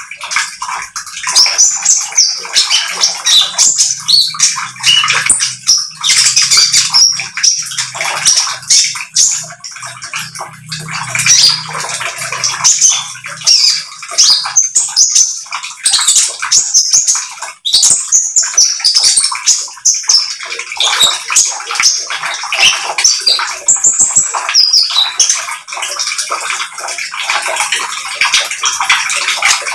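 Brown-throated sunbird (konin) singing its 'trotol' song: a continuous rapid chatter of high, sharp chirps and trills with hardly a break.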